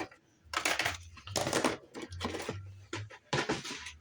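Pieces of scrap silver clattering and scraping as they are rummaged through in a container, in four short bursts.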